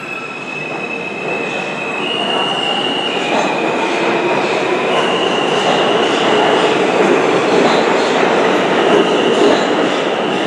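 R160A subway train pulling out of the station and accelerating: a high propulsion whine that steps up and down in pitch rides over the rumble of wheels on track, which grows steadily louder as the cars pass.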